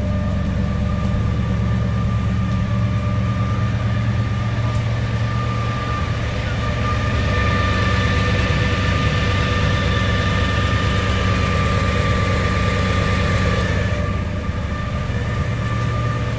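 1964 Chevrolet El Camino's V8 idling steadily through its dual exhaust, with a thin steady whine above the low engine note.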